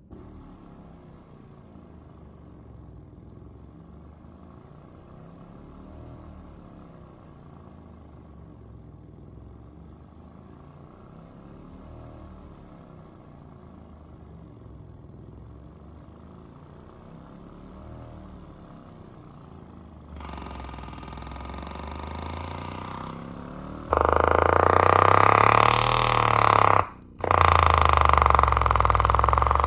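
Pyle PLPW8D 8-inch subwoofer playing a break-in sine sweep, its low tone gliding up and down over and over. The sweep is fairly quiet at first, is turned up about twenty seconds in, and becomes very loud a few seconds later. It cuts out briefly near the end before resuming.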